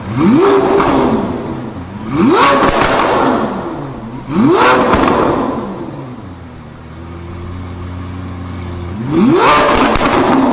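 Lamborghini Aventador LP750-4 SV's 6.5-litre V12, fitted with an Fi Exhaust valvetronic system, being blipped in sharp free revs. It gives three quick revs with the exhaust valves closed, each falling back, then idles steadily for about three seconds. Near the end it gives another sharp rev with the valves opened.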